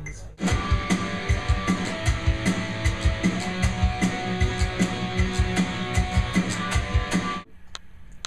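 Band music with guitar over a drum kit keeping a steady beat. It starts abruptly and cuts off suddenly near the end.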